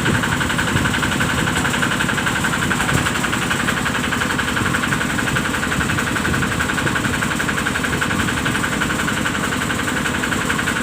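Excavator's diesel engine idling steadily.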